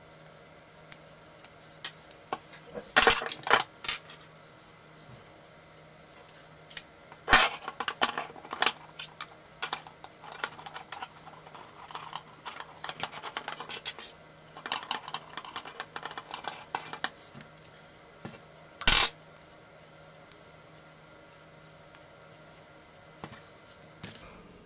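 Scattered metal clicks and clinks of an Allen key turning a screw and knocking against a slingshot's metal frame while the screw is tightened, in several short flurries with one louder knock a little past the middle.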